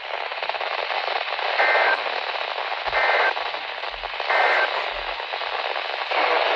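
Weather radio receiver hissing with static, broken by three short two-tone data bursts about 1.3 s apart. This is the SAME digital header that opens an Emergency Alert System message, here a severe thunderstorm warning.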